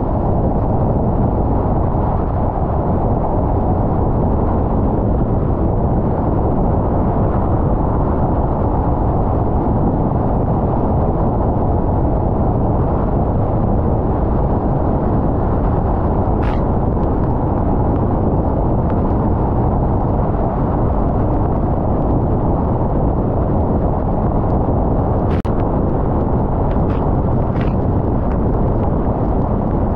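Steady road noise of a car driving: tyre and engine rumble with no pitch changes. There is a short click about halfway through and three more close together near the end.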